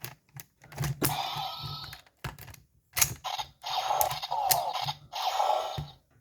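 Plastic clicks of a ranger key being handled and turned in a Mobirates toy phone, between short bursts of electronic sound effects from the toy's small speaker.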